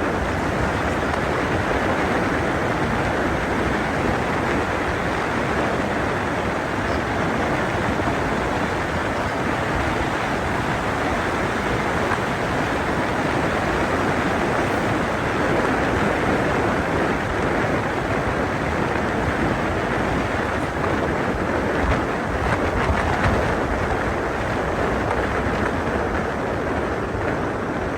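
Steady rushing noise of a moving vehicle, wind and road noise mixed, with no distinct engine tone or knocks.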